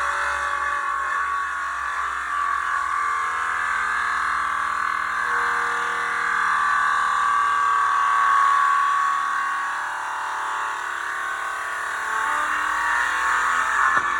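Handheld circular saw running under load, cutting through two wooden boards held together in a single pass; a steady, loud whine.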